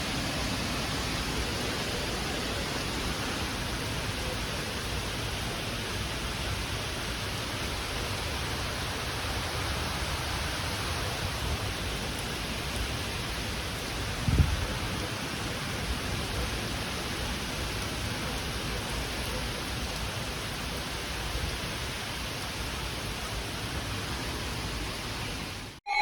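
Steady hiss of weather-radio static, with one brief low thump about halfway through; the hiss cuts off suddenly at the very end.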